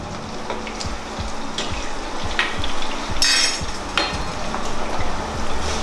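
Food frying in a wok on a gas stove, with a steady sizzle and the clinks and scrapes of a metal spatula stirring it, the longest scrape about three seconds in.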